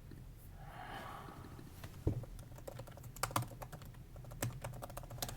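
Typing on a computer keyboard: an irregular run of key clicks starting about two seconds in.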